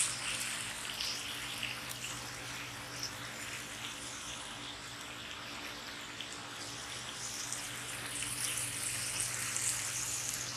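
Burger patty sizzling in a cast iron skillet on a wood-burning camping stove: a steady hiss with small irregular crackles.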